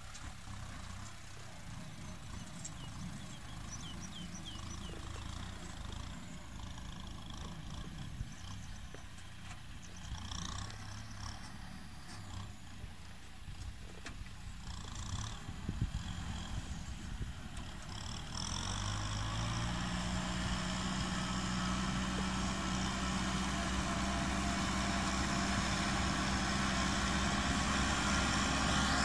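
Kubota tractor's diesel engine running steadily as it pulls a disc plough through dry ground. The engine note grows louder and clearer about two-thirds of the way through as the tractor comes close.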